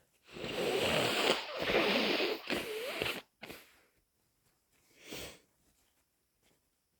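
A congested nose blown hard and snottily for about three seconds, then one short sniff about two seconds later; the stuffiness is from a head cold.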